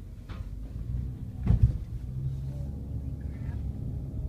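Jeep Renegade Trailhawk's 2.4-litre inline-four engine pulling under load in four-wheel-drive low as it climbs a steep hill, heard from inside the cabin. A loud thump about one and a half seconds in.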